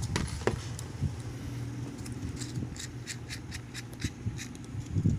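Small clicks and taps from hands handling a female XLR microphone connector and cable, with a quick run of light ticks about two to four seconds in and a heavier knock near the end, over a steady low hum.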